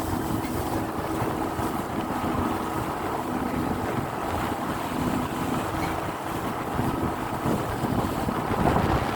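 Wind buffeting the microphone on a moving boat, over the steady low hum of the boat's engine and water noise.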